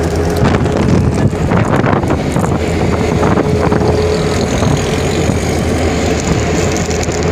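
Steady engine and road noise of a moving vehicle heard from inside it, with wind buffeting the microphone.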